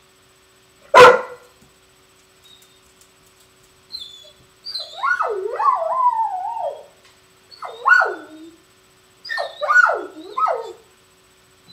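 Weimaraner barking once sharply about a second in. It then howls and whines in wavering cries that rise and fall: one long cry, a falling one, then a quick run of short ones. This is the distress of a dog with separation anxiety.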